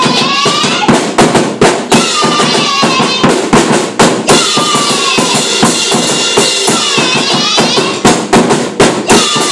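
Live drum kit played in a fast, steady beat with cymbals, with women's voices singing and shouting loudly over it.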